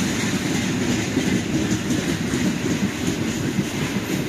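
Passenger train pulling out past the platform, its wheels making a steady noise on the rails.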